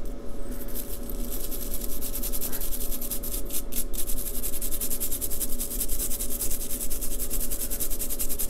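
A small bristle brush scrubbing back and forth across the metal pins of an ECL82 vacuum tube, making a rapid scratchy rasping. The pins are being cleaned of dirt so they make good contact in the tester socket.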